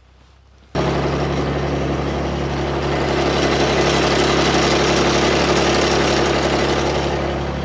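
Tractor engine running steadily, cutting in abruptly under a second in and holding a constant, loud engine note.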